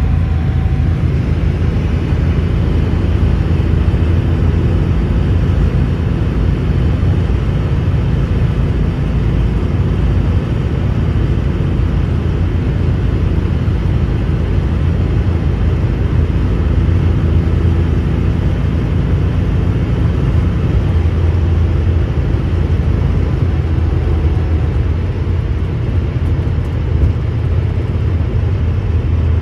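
Air-cooled flat-six of a 1984 Porsche 911 Carrera 3.2 cruising at steady highway speed at about 3,000 rpm in fifth gear territory, heard from inside the cabin as a steady low drone.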